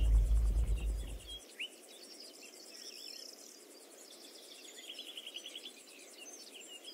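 A low rumble dies away over the first second and a half. It leaves a quiet outdoor ambience of scattered bird chirps, with a fast insect-like trill of repeated chirps about five seconds in.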